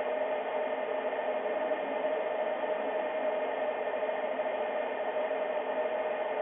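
Steady static-like hiss with a steady mid-pitched hum running through it, unchanging throughout, with no clicks or other distinct sounds.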